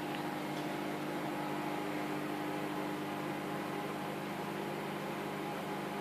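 A steady mechanical hum at a few fixed pitches over an even hiss, unchanging throughout.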